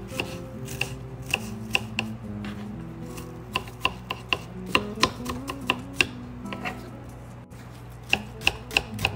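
Kitchen knife dicing an onion on a wooden cutting board: a string of sharp knocks of the blade on the board, two or three a second, with a short pause late on. Soft background music plays underneath.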